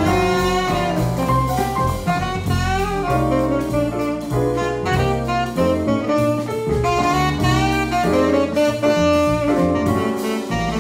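A jazz quartet playing: saxophone leading the melody in quick runs of notes over piano, double bass and drum kit.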